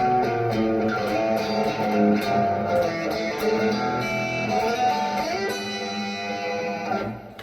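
Peavey Vandenberg electric guitar on its single-coil pickup, played overdriven through a Carl Martin Panama pedal and a Blackstar HT5 amp: a run of picked notes and riffs with a slide a little past five seconds in, then the playing stops and rings out near the end.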